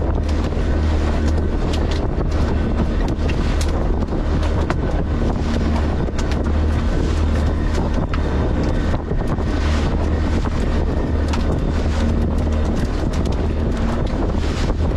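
Fishing boat's engine running steadily with a low hum, under heavy wind buffeting on the microphone, with frequent short knocks throughout.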